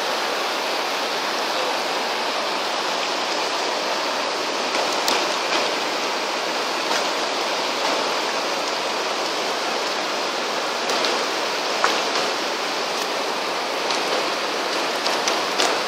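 Fast mountain river rushing over rocks, a steady, loud rush of whitewater. A few light clicks sound over it in the second half.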